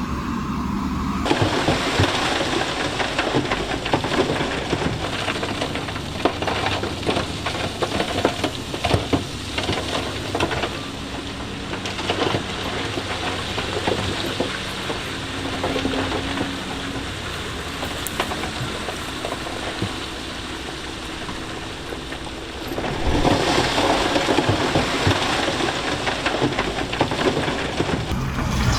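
Heavy earthmoving machinery running while a mass of stone clatters and grinds. Many small stones crackle in a dense, rain-like rattle over a low engine drone, growing louder near the end.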